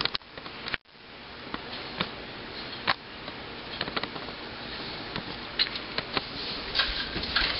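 Steady background hiss with scattered small clicks, broken by a brief dropout just under a second in.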